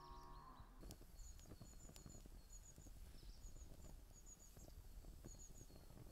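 Wood kindling faintly crackling and popping as a fire catches in a metal fire pit, with small birds chirping in short high notes, in pairs and threes.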